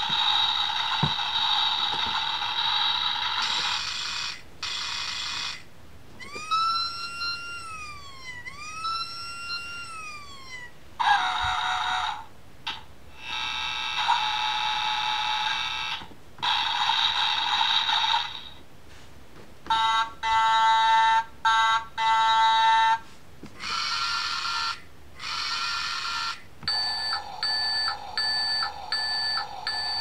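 A Tonka sound book's small electronic speaker playing a string of short recorded vehicle sound effects, one after another with brief gaps. They include a siren rising and falling twice, and bursts of repeated electronic beeping in the second half, all thin and tinny with no bass.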